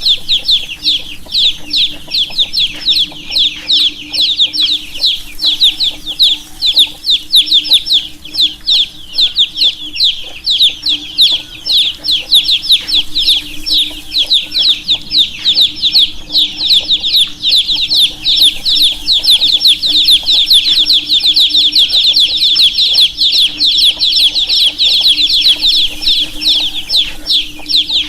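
Many baby chicks chirping continuously, overlapping high-pitched peeps in a dense, steady chorus, with a faint low steady hum underneath.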